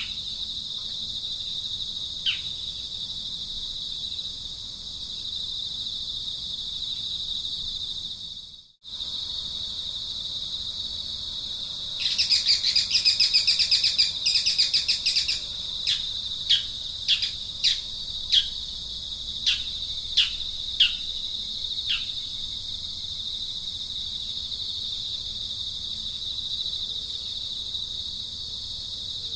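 Steady high-pitched insect drone, with short downward-sliding bird chirps scattered through and a burst of rapid, loud chirping about twelve seconds in, followed by a string of single chirps.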